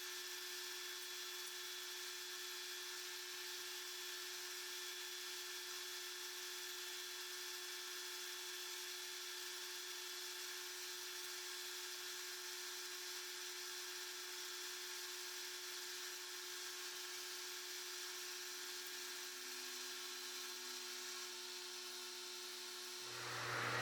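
Metal lathe running steadily with a motor whine while turning a half-inch steel plate. In the last second a louder, harsher sound sets in.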